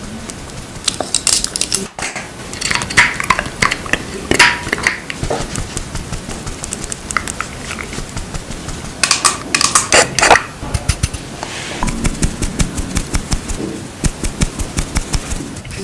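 Close-miked makeup brush sounds: a powder brush worked on the face gives crackly clicks and taps in uneven clusters, heaviest about three to five seconds in and again around nine to ten seconds, with quicker, lighter ticks near the end.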